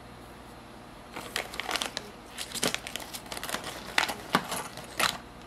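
Packaging of fishing jigs crinkling as it is handled and opened. There are a few sharp clicks near the end.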